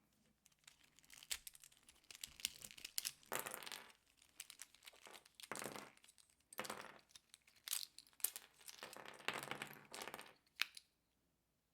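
Plastic pieces of a Rubik's cube being pried off and handled: irregular clicks and short scraping rustles, with a sharp click about ten and a half seconds in.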